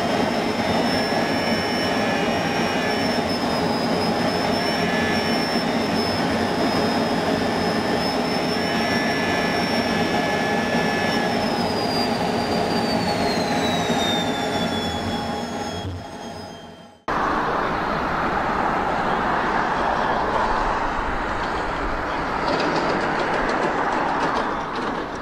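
Jet engine noise from fighter jets landing side by side: a loud steady whine with a high tone that drops in pitch over its last few seconds. After a cut about two-thirds of the way through, an Airbus A350's engines roar at takeoff thrust.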